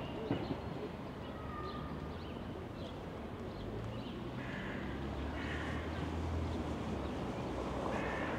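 Urban park ambience: a steady low hum of distant city traffic with scattered short bird chirps, and a few footsteps on the path at the very start.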